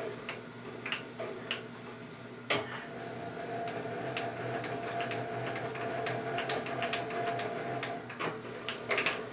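Knee of a Wells Index milling machine being raised and lowered with its hand crank: light, irregular metallic ticks and clinks from the crank and elevating screw, with one sharper clack about two and a half seconds in and a faint steady tone through the middle. No popping: the knee now moves smoothly on its freshly adjusted gib.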